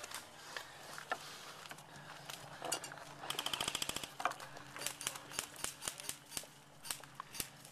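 Short rapid burst of airsoft gunfire a little past three seconds in, among scattered clicks and knocks.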